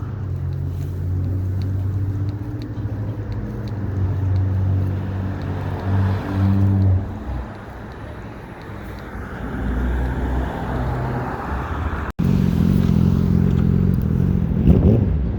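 Road traffic: a motor vehicle's engine running and going by, a steady low hum that shifts in pitch, with a swell of tyre-like noise about ten seconds in. The sound drops out for an instant about twelve seconds in, and a similar low engine hum follows.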